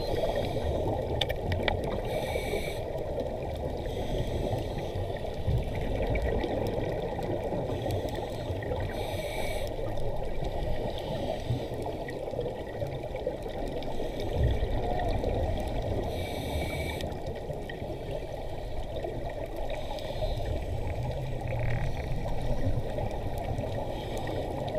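Underwater ambience through a camera housing: a steady muffled wash of water. About every seven seconds there is a short hiss, with now and then a low bubbling rumble, the sound of a scuba diver breathing through a regulator.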